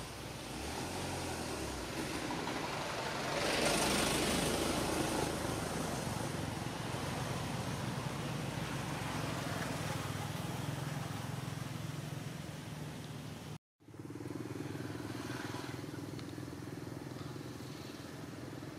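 Outdoor background noise with a motor-vehicle engine hum that swells loudest about four seconds in and then fades. The sound drops out for an instant about two-thirds of the way through, and a steady lower hum continues after it.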